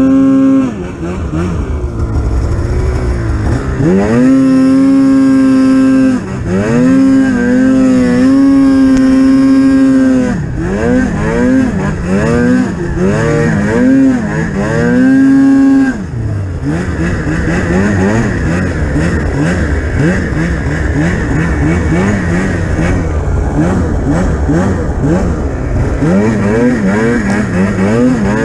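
Polaris Pro RMK 800 snowmobile's two-stroke engine revving hard and easing off again and again. It holds high revs for a few seconds at a time in the first half, then runs lower with quick rises and falls, and climbs again near the end.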